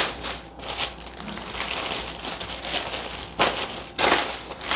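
Thin plastic bags rustling and crinkling as they are handled, in irregular crackly bursts, loudest about three and a half seconds in and near the end.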